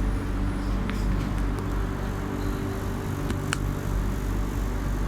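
Light-rail train heard from inside the carriage while running: a steady low rumble with a motor hum. A few faint clicks come about a second in, and a short sharp squeak or click follows a little past the middle.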